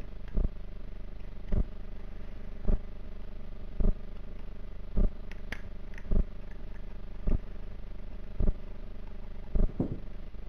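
A steady machine hum with a dull low thump repeating evenly, a little faster than once a second. A few faint clicks come about halfway through.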